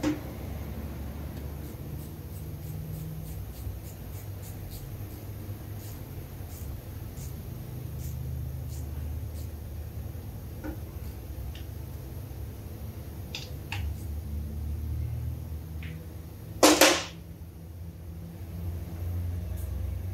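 Hand tools and metal engine parts being handled on a workbench: scattered light clicks and taps, with one loud knock about 17 seconds in, over a steady low hum.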